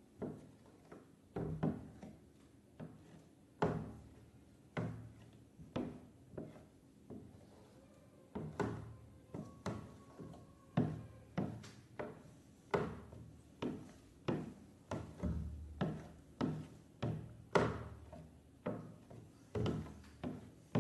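Slime being squeezed and pressed by hand, making a series of soft, squelchy thunks, roughly one or two a second.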